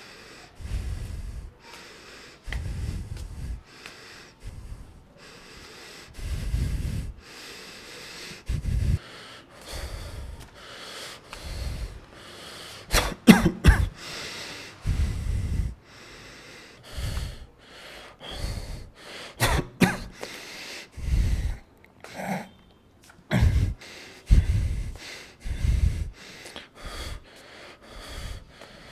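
A person breathing heavily and out of breath close to the microphone, loud rasping breaths about once a second from the exertion of climbing stairs, with a few sharper, louder breaths midway.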